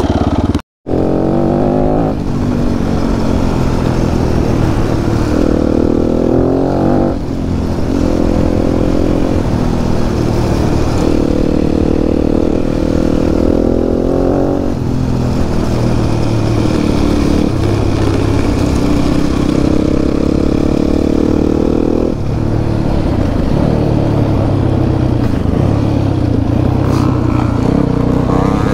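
Enduro motorcycle engine being ridden hard, its pitch climbing and falling back several times as the throttle opens and closes and the gears change, with some clatter over the rough ground. A brief cut-out in the sound just under a second in.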